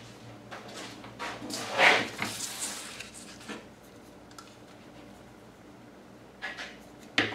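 Sheets of paper being handled and slid across a wooden tabletop, a rustling scrape loudest about two seconds in. A couple of short light knocks follow near the end.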